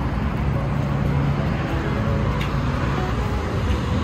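Steady low rumble of a motor vehicle or road traffic, with a constant low hum and no sudden events.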